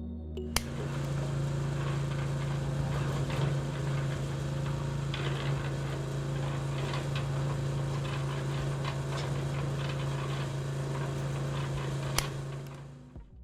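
A small motor is switched on with a click about half a second in and runs with a steady hum and scattered small clicks. It stops near the end.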